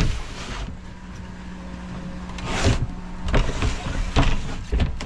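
The sliding main hatch of a 1984 Hunter 37c being pushed back and forth by its new wooden handle. It makes several scraping slides in its runners, with a steady low hum under them.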